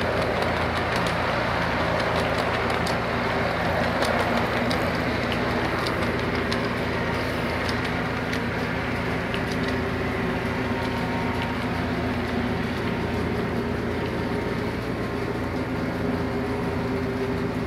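Lionel O-scale tank cars and a covered hopper rolling past on three-rail toy track: a steady rumble of the wheels with a stream of light clicks, under a faint steady hum.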